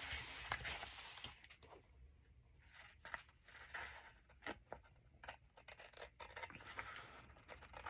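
Faint snipping of scissors trimming a glued-down strip of paper, heard as scattered short sharp clicks with a little paper rustle.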